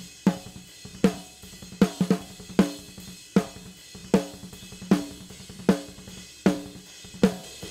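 Soloed raw snare drum track from a tightly played metal drum performance: a hard hit about every three-quarters of a second, each with a short ring, and a quick double hit about two seconds in. Hi-hat ticks faintly between the hits.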